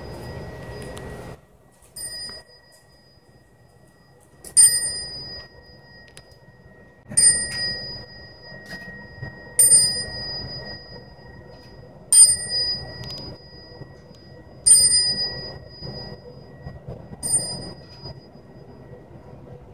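A small, high-pitched Buddhist temple bell struck at a slow, even pace, about once every two and a half seconds, seven times, each strike ringing on and fading, as a procession of monks moves through the hall.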